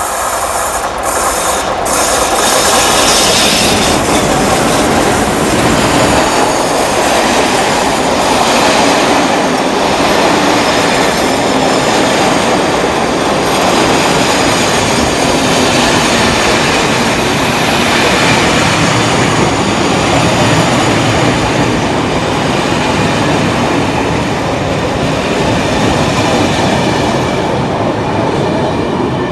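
Diesel-hauled passenger train running past close at speed: the locomotive and then a long rake of coaches go by in a loud, steady rush of wheels on rail. The noise builds over the first couple of seconds and eases off near the end as the last coaches pass.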